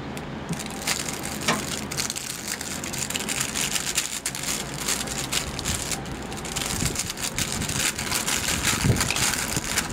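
Thin clear plastic packaging bag crinkling and rustling in the hand as it is handled and opened, a continuous run of fine irregular crackles.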